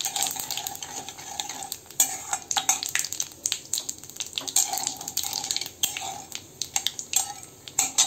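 Steel spatula scraping and knocking irregularly against a metal kadai as a dried red chilli, bay leaf and cumin seeds sizzle in hot mustard oil, the tempering for the dish.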